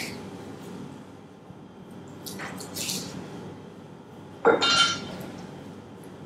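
Kitchen handling of raw chicken pieces on a plastic cutting board, with a short knock at the start and soft swishes; about four and a half seconds in, a loud metallic clatter with a short ring, from the chef's knife and stainless steel tray.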